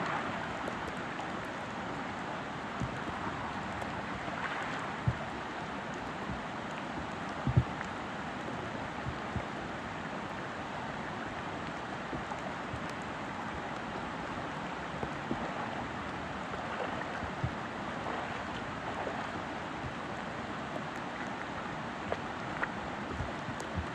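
Steady rain falling together with the rush of flowing creek water, with a few short sharp taps now and then.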